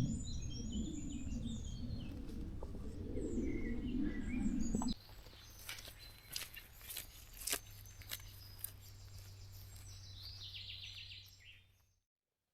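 Small birds chirping and singing over a low rumble of wind for about five seconds. It then drops suddenly to quieter birdsong with scattered clicks, and fades out near the end.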